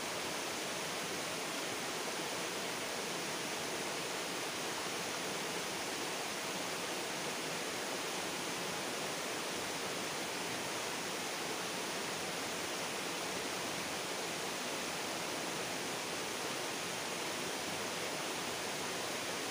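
Steady rushing of flowing river water, an even hiss that does not change.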